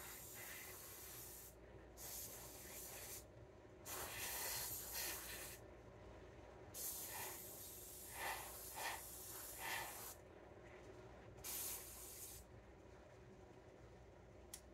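Airbrush spraying green paint onto a plastic model helicopter in about five short bursts of hiss, starting and stopping abruptly as the trigger is worked, the longest about three seconds near the middle.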